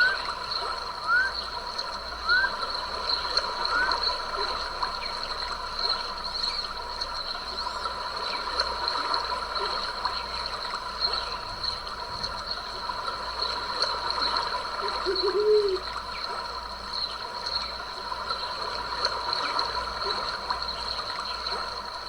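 Stream running steadily, with a steady high hum over the water. In the first few seconds a small animal gives a short rising call four times, about once a second, and a single low call comes about two-thirds of the way through.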